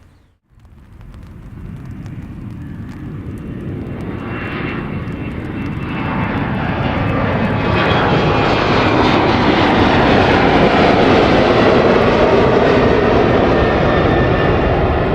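Airliner's engines growing steadily louder as the aircraft approaches, with a whining tone that slides down in pitch as it passes, then a loud steady rush that eases slightly near the end.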